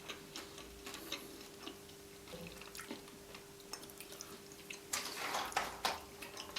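Quiet chewing and wet mouth clicks of a person eating roast chicken, with a faint steady hum underneath. A louder rustling, handling stretch comes about five seconds in.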